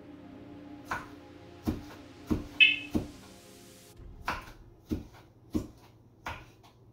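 Knife chopping green pepper on a wooden cutting board: about nine sharp, separate strikes at an uneven pace, roughly one every half second to second.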